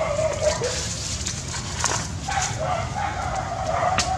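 An animal's drawn-out whining calls at a steady pitch: one of about a second at the start, then a longer one from about halfway to the end, with a couple of sharp clicks in between.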